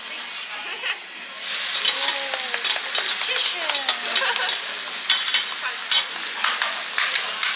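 Food sizzling on a hot iron teppan griddle while metal spatulas scrape and tap against the plate in quick clicks. The sizzle starts suddenly about a second and a half in, and the spatula taps come faster and more regularly near the end.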